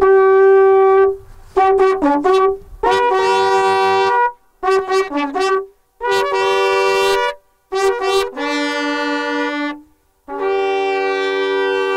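Slovak fujara trombitas, long wooden horns without finger holes, played by several players. They sound signal phrases: runs of quick short notes alternate with held notes, and the last two held notes sound as two pitches at once.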